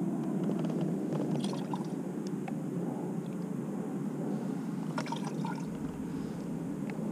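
Liquid car-wash foam soap being poured capful by capful into a pump-up foam aerator bottle, with small plastic cap clicks about a second in and again about five seconds in, over a steady low background hum.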